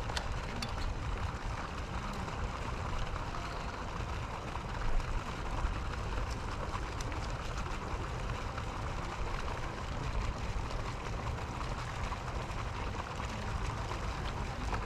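Steady outdoor noise: a fluctuating low rumble like wind on the microphone over an even hiss like running water, with a few faint clicks and a brief louder bump about five seconds in.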